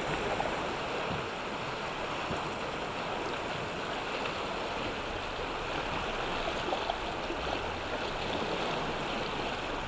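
Whitewater river rapids rushing: a steady, even noise of churning water.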